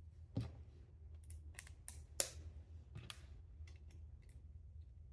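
Plastic Lego pieces clicking and tapping as they are picked up and pressed onto plates, about nine sharp clicks at uneven intervals, the loudest a little past two seconds in, over a low steady hum.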